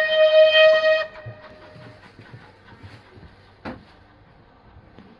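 Steam locomotive whistle: one steady, single-note blast that cuts off about a second in, its echo trailing briefly. Then a quieter rumble of the train running, with a single sharp knock midway.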